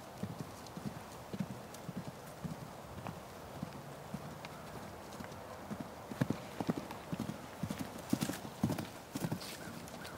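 Hoofbeats of a Thoroughbred–Warmblood cross mare trotting and cantering loose over grass turf: a run of dull, uneven thuds that grow louder past the middle.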